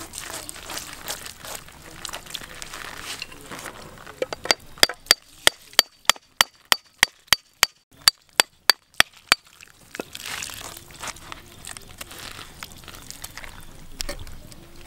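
A steel cleaver being hammered through a jackfruit with a wooden stick: a run of sharp knocks, about three or four a second with a slight metallic ring, for some five seconds in the middle. Before and after it, a rough crunching and scraping as the blade works through the fruit's rind.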